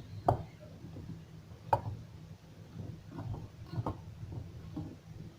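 Potatoes, onion, green pepper and carrot being tossed and mixed in a dish, with a few sharp knocks against the dish over a low steady hum.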